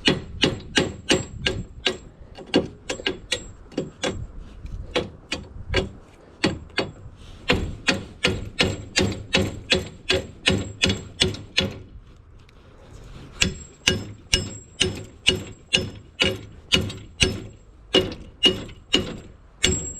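Hammer blows on metal while knocking at rusted nuts and bolts, about two to three strikes a second, each with a ringing metallic clang. The blows ease off for a moment around twelve seconds in, then carry on.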